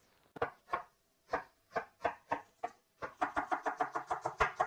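Chef's knife cutting fresh ginger root on a wooden cutting board: separate slicing strokes knocking on the board about three a second, then about three seconds in a fast run of mincing chops, about six a second.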